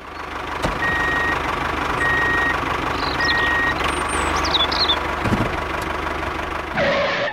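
Truck engine running steadily, with a reversing alarm beeping three times about a second apart, starting about a second in.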